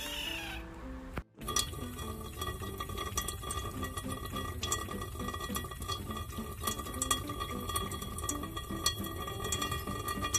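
A kitten meows once over soft music. Then, after a short break, a kitchen tap runs in a thin stream into a stainless-steel sink, with many small sharp clinks and drips and a steady high tone through it.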